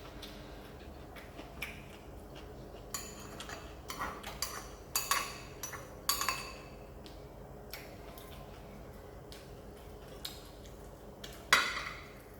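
Eating utensils clinking against dishes: a quick run of ringing clinks in the middle, then one louder clink near the end.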